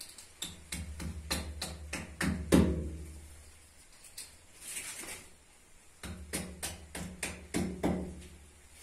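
Claw hammer striking a small fastener into a plastered wall, in two runs of quick blows about four a second with a pause of a few seconds between. The last blow of the first run is the loudest and rings on briefly.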